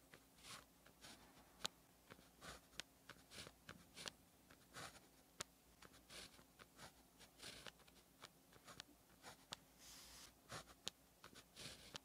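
Zebra Sarasa 1.0 gel pen writing on paper: faint, short scratches of the tip, one stroke after another, with a few small sharp taps as the pen sets down.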